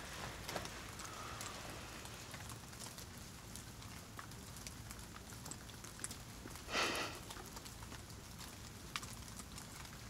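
Quiet room tone: a faint steady hiss with a few tiny clicks, and one brief soft rustle about seven seconds in.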